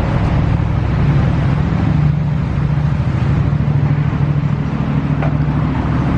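Steady city street traffic noise, with a low, even engine hum close by.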